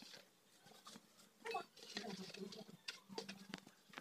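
Peeled garlic cloves handled in a plastic bowl: soft rustling with a few light clicks, about one and a half seconds in and again around three seconds.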